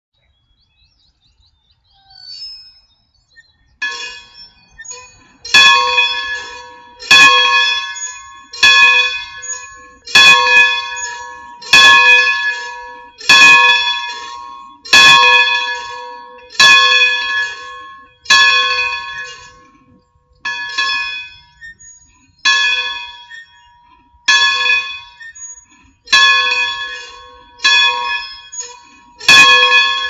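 A single church bell in a small bellcote ringing, struck about every one and a half seconds. The first few strokes are faint and uneven, then it settles into full strokes that each ring on until the next.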